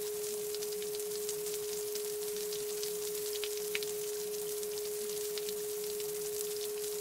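A steady pure sine tone held without change, with faint hiss and scattered small crackles high above it, as in a subliminal audio track.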